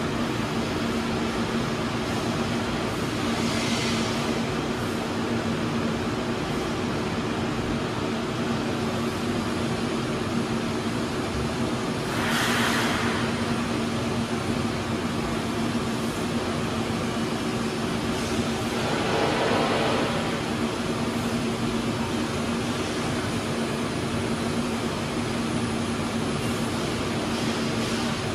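Steady machine hum with an even fan-like whoosh, two low tones holding throughout. Brief rustles about four seconds in, around the middle, and about two-thirds of the way through.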